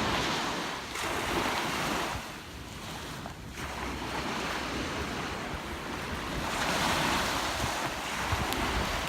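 Ocean surf washing onto a beach, with waves breaking in swells (one near the start, another about seven seconds in) and wind on the microphone.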